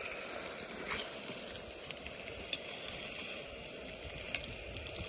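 Brook trout fillets sizzling steadily in butter in a small frying pan on a Jetboil camp stove, with a few light clicks of a fork against the pan.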